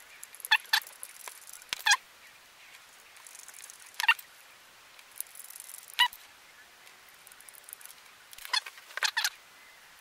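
Short, high squeaks and clicks every second or two from a Torx screwdriver turning small bracket screws into the side of a 2.5-inch SSD, with a quick cluster near the end.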